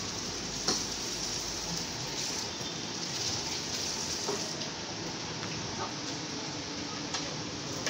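Heavy rain, a steady rushing hiss, with a few light clinks of cups and dishes being set down on a tiled counter.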